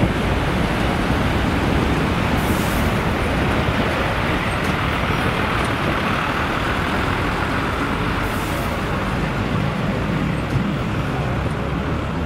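Airbus A319CJ twin-engine jetliner at takeoff thrust as it lifts off and climbs away: a loud, steady jet rumble.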